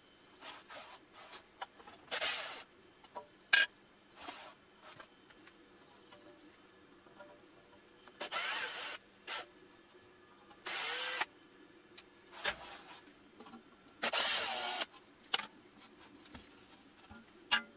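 Cordless drill spinning a small sanding drum in short bursts of under a second against an old wooden wok handle, grinding the wood away to take the handle off. A few sharp clicks and knocks fall between the bursts.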